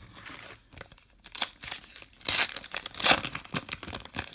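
A trading card pack's wrapper crinkling and being torn open by hand, in several short rustling bursts, the loudest about three seconds in.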